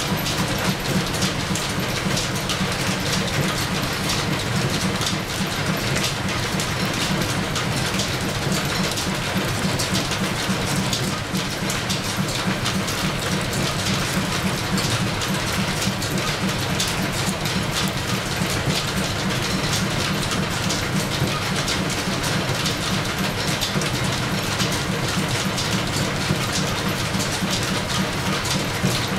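Belt-driven metal lathe and overhead line shaft running steadily, with a fast, even clatter from the belts and pulleys.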